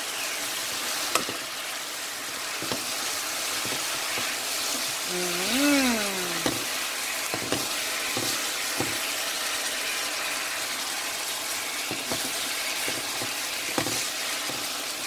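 Mushrooms and sliced onions sizzling in sauce in a frying pan, stirred with a spatula that scrapes and taps the pan now and then. About halfway through, a brief hummed voice rises and falls.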